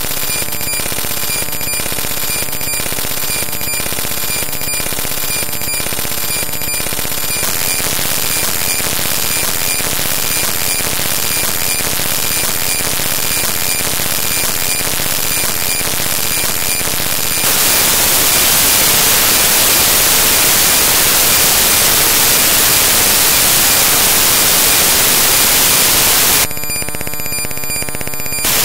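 Harsh digital glitch noise: loud static hiss with steady whining tones running through it. It pulses regularly for the first several seconds, becomes louder and hissier partway through, and briefly changes texture near the end.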